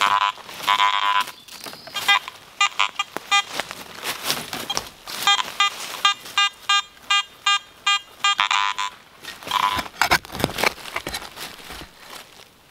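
Garrett AT Gold metal detector sounding a buzzy target tone as its coil is swept over a buried target, first in longer tones and then as a quick run of short beeps about three a second. Near the end a hand trowel chops into the soil to dig the target out.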